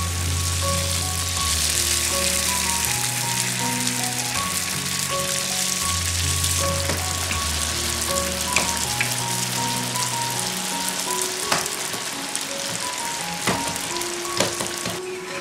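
Youtiao dough sticks deep-frying in a wok of hot oil, with a steady sizzle, and a few sharp clicks near the end. Background music plays over it.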